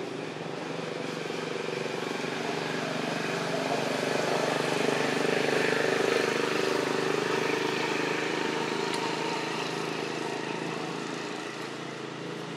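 An engine passing by: a steady motor sound that grows louder to a peak about five or six seconds in, then fades away.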